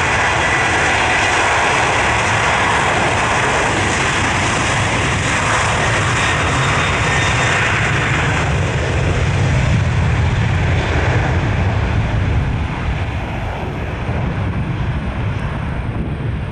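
Qantas Boeing 737-800's twin CFM56 jet engines running at high power as the airliner rolls along the runway past and away. A loud, steady noise with a high whine that fades after about eight seconds, and a low rumble strongest around ten seconds in; the sound drops off over the last few seconds as the aircraft moves away.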